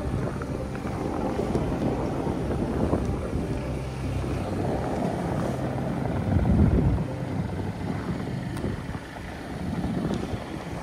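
Strong snowstorm wind buffeting the microphone in a continuous low rumble, with a heavier gust about six and a half seconds in.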